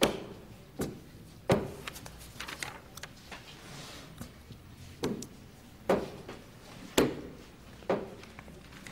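A series of about seven sharp knocks and bangs at uneven intervals, the loudest near the start and around the middle, with quieter clatter between them.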